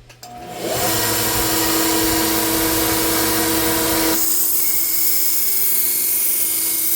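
1x30 belt sander starting up and running, with a knife edge being ground against the abrasive belt. About four seconds in the grinding thins out, leaving the motor and belt running on their own with a faint steady whine.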